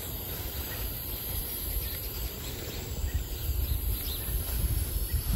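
Outdoor garden ambience: a low, uneven rumble on the microphone that grows in the second half, with a few faint bird chirps.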